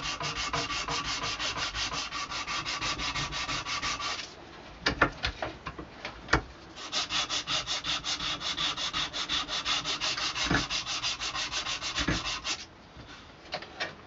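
Sandpaper drawn quickly back and forth around the joint between an antler handle and a wooden stick shank, rounding and smoothing the joint. The rasping strokes are quick and even. They break off for a couple of seconds partway through, when a few knocks are heard, then start again and stop shortly before the end.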